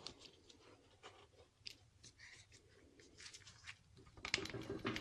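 Faint handling of tools and engine parts: scattered light clicks and scrapes. About four seconds in, a rapid run of clicks starts and grows louder.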